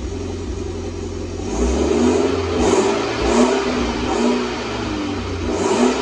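Mitsubishi Lancer Evolution X's turbocharged four-cylinder engine running and revved in about five short throttle blips, breathing through an ETS test pipe in place of the stock catalytic front pipe, with the stock cat-back muffler still on. An exhaust leak hisses from the test pipe's open, unplugged sensor bung.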